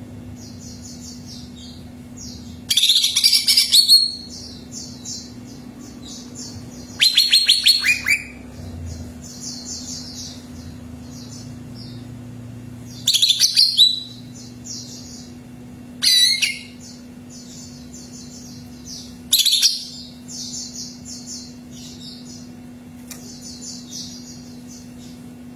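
Cucak ijo (green leafbird) singing: five loud bursts of rapid, high chirping song a few seconds apart, with fainter continuous twittering between them. A steady low hum runs underneath.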